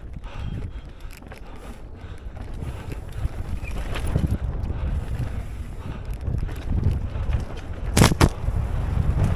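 Wind rumbling on the microphone, growing louder, with two sharp knocks close together near the end.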